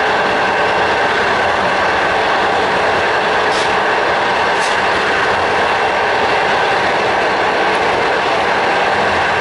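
Passenger train running at speed, heard from inside the carriage: a loud, even rush of running noise with a faint steady tone through it.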